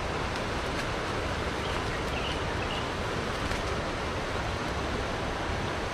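Steady rushing of flowing river water, with a few faint chirps midway.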